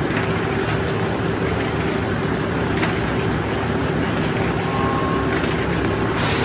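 Sawmill's large circular head saw spinning freely with no log in the cut, with a steady hum over the mill machinery's running noise. Near the end the log carriage moves up toward the blade and the sound changes.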